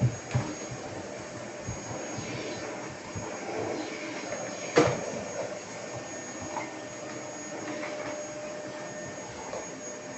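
Vacuum cleaner running steadily with a thin high whine, broken by a few short knocks near the start and one sharp, loud thump about halfway through.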